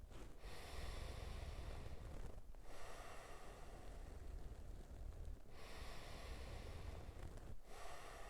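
Deep, slow breathing in and out through the nose, each breath lasting two to three seconds, with a short pause between one breath and the next.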